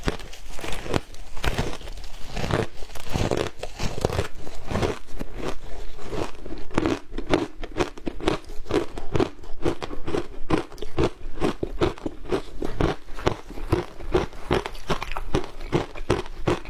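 A person biting and chewing frozen matcha shaved ice close to the microphone: a continuous run of crisp crunches, settling into an even rhythm of about two crunches a second in the second half.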